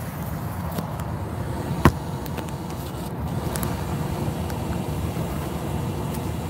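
Steady engine and road rumble of a Ford pickup truck, heard from inside the cab, with a single sharp click about two seconds in.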